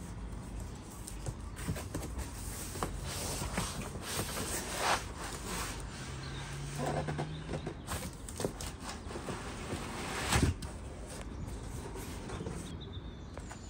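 Scattered light clicks and knocks of objects being handled, with one louder knock about ten seconds in.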